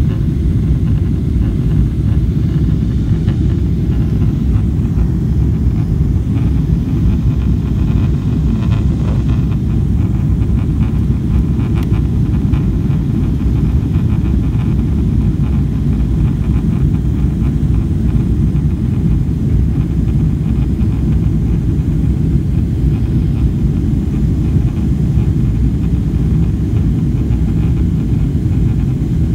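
Airliner cabin noise in flight: the steady, deep rumble of jet engines and rushing airflow heard from a window seat, with no change in pitch or level.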